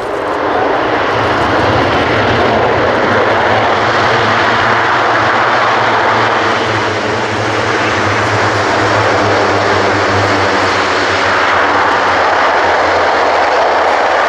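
Airbus A400M's four Europrop TP400 turboprops running loud during the landing roll, their propellers in maximum reverse pitch to slow the aircraft. The sound swells about half a second in and then holds steady, with a low drone under it.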